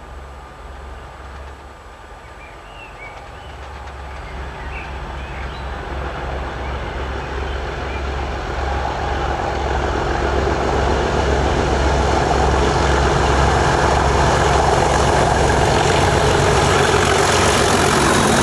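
Two English Electric Class 37 diesel locomotives double-heading a freight train up a steep incline under full power, their V12 engines thrashing. The sound grows steadily louder over the first dozen seconds as they approach, then stays loud as they pass close by.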